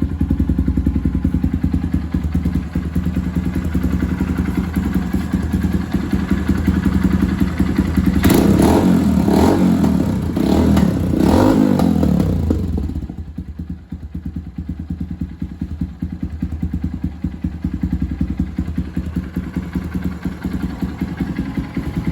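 Honda XR150L's single-cylinder four-stroke engine running through a Norifumi aftermarket full exhaust, with a 110 main jet in the stock carburetor. It idles steadily, is revved up several times in quick succession about a third of the way in, then settles back to idle.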